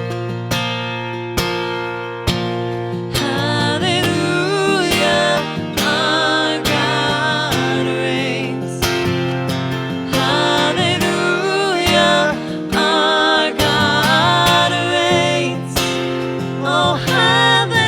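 Worship band music: acoustic guitar strumming chords over a sustained bass, with a voice singing long, wavering held notes from about three seconds in.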